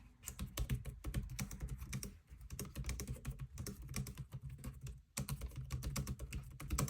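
Fast typing on a Logitech K380 Bluetooth keyboard with round keycaps: a dense run of key clicks, broken by two short pauses about two seconds in and about five seconds in.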